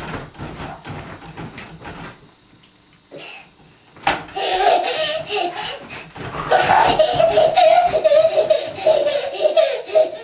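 Toddler laughing and squealing while bouncing on a crib mattress, with quick knocks and creaks from the wooden crib. The laughter turns loud and long from about four seconds in.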